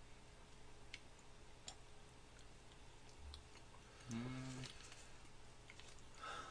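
Faint, scattered small clicks of two people quietly eating soft pineapple cakes, with a short hummed "mm" about four seconds in.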